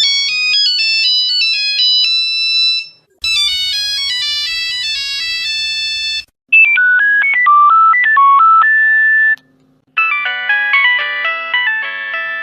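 Nokia mobile phone ringtones played one after another in successive versions, each a short electronic melody separated by brief silences. First comes a high, thin tune, then a fuller one, then one over a steady low hum, and a fourth fuller version starts about ten seconds in.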